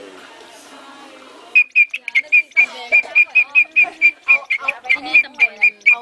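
Large green leaf-winged katydid calling: a rapid, regular series of short bird-like chirps on one high pitch, about five a second, starting about a second and a half in. People talk underneath.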